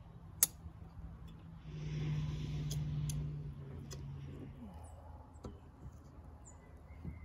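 A caulking gun gives one sharp click about half a second in, followed by a few lighter clicks and knocks of roof-deck work. Near the middle a low steady hum with a hiss swells for about two seconds and fades.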